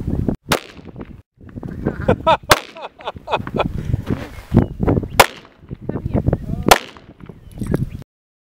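Gunshots: four loud sharp cracks at irregular intervals, with smaller pops between them, and the sound cuts off abruptly near the end.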